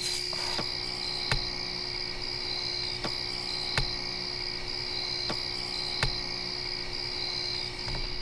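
Insects, such as crickets, trilling steadily in a high continuous tone that breaks off briefly every second or so. Faint sharp clicks come about every three-quarters of a second.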